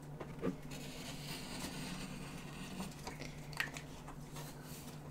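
Quiet handling sounds at a desk: a paint marker nib scratching across canvas, a couple of short light clicks, and the canvas board being picked up, over a steady low hum.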